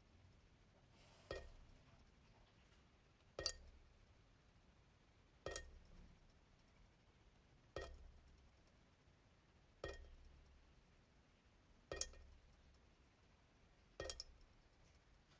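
Kitchen faucet dripping into the sink in a slow, steady drip: seven single drops about two seconds apart, each a short plink that fades quickly.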